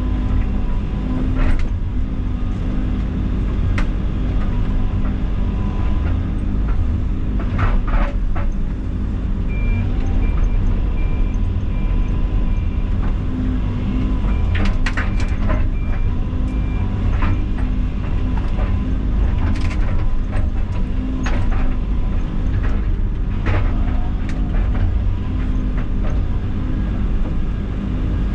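A diesel excavator engine runs steadily under working load, with sharp knocks and cracks at intervals. A high beeping alarm pulses for several seconds around the middle.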